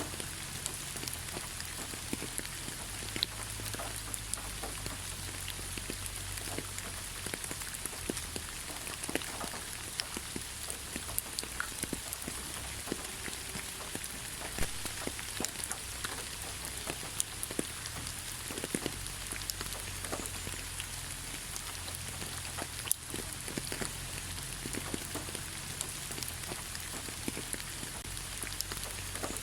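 Steady light rain falling on leaves, a constant hiss with many scattered drop ticks and the odd louder drip.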